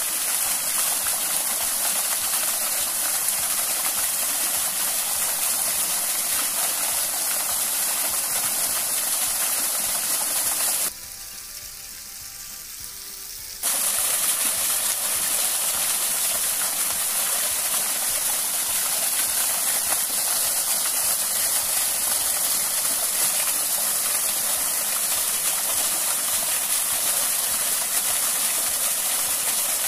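Small waterfall splashing into a pool, a steady rushing hiss. It drops away abruptly for about three seconds near the middle, then comes back just as before.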